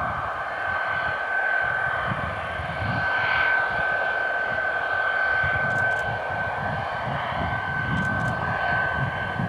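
Jet engines of a Tupolev Tu-134UB-L, its twin Soloviev D-30 turbofans, running with a steady high whine over a rushing noise and an uneven low rumble.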